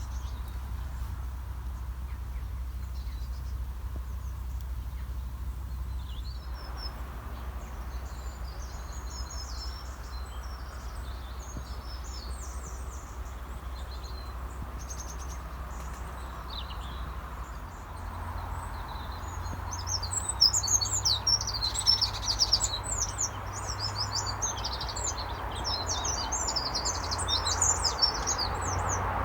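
Small birds chirping and twittering, sparse at first and much busier and louder in the last third, over a steady low background rumble.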